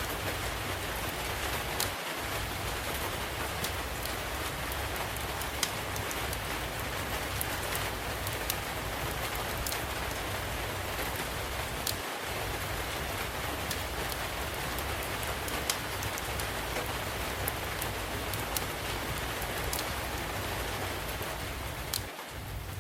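Steady rainfall hissing, with scattered sharp pops and snaps of a wood fire crackling in a fireplace.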